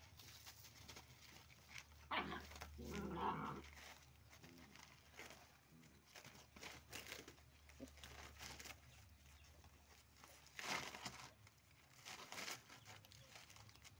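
German shepherd puppies at play: a short puppy vocal sound about two seconds in, then faint scuffling and crinkling of cardboard being chewed and pawed, with a few small rustles near the end.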